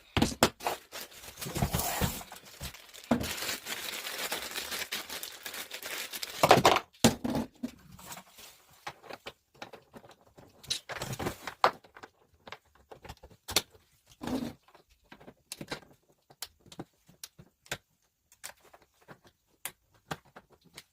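Packaging being torn and crinkled for several seconds, followed by a string of scattered light clicks and knocks as parts are handled.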